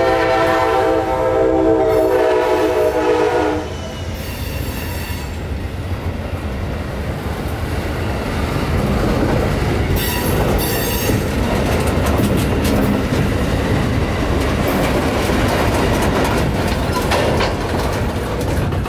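A locomotive air horn sounds a chord for about three and a half seconds. Then a string of covered hopper cars rolls past close by: a steady wheel rumble with rail clicks and a couple of sharp metallic clanks about ten seconds in.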